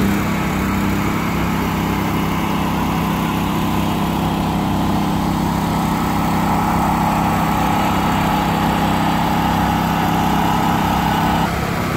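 Small engine running steadily at a constant speed, the sound of a portable engine-driven pump, with a steady whine above its low hum. It breaks off abruptly near the end.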